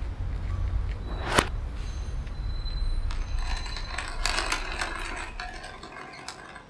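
Mechanical clicking and rattling over a low rumble: one sharp click about a second and a half in, then a busy run of small clicks and ratchet-like rattles that thins out and fades near the end.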